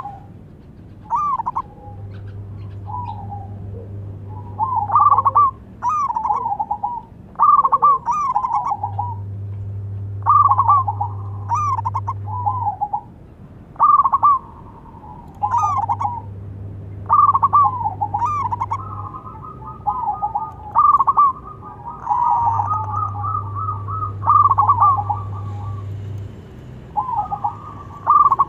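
Zebra dove cooing in short phrases of quick staccato notes, one phrase after another every second or two.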